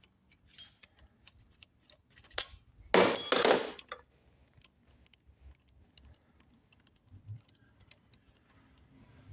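Hand tools working the bolts of a starter motor's back cover: scattered small metallic clicks and taps, with one louder rattling burst lasting about a second, about three seconds in.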